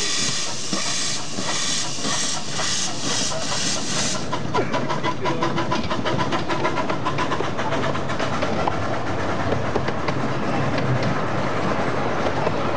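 A 10.25-inch gauge 2-4-2T tank steam locomotive passing at speed, its exhaust beating in a steady run of hissing chuffs, two or three a second. After about four seconds the chuffing stops and the passing coaches take over with a rapid, continuous clicking and rattling of wheels on the track.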